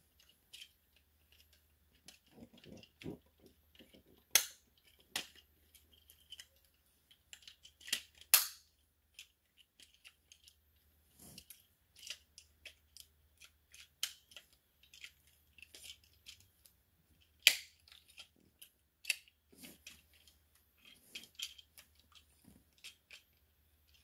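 Hard plastic Transformers Constructicon figure parts being handled and fitted together: irregular small clicks and snaps. A few sharp snaps stand out, about four, eight and seventeen seconds in.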